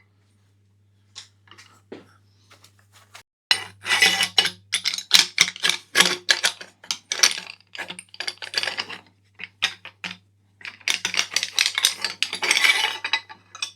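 Metal tools and parts clinking, tapping and scraping as a bicycle stem's handlebar clamp is unbolted and pried open and the handlebar worked through it. A few light clicks at first, then dense irregular clinking from about three seconds in.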